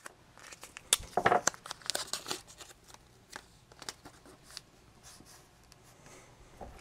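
Masking tape being torn off and pressed down by hand: a sharp click about a second in, then a second or so of crinkly ripping, then a few light taps.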